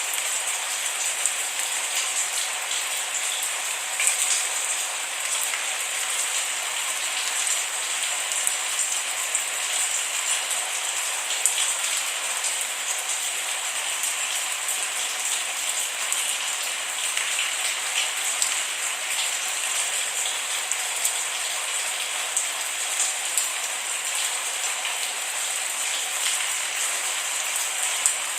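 Steady rain, an even hiss of falling rain with many small sharp drop ticks scattered through it.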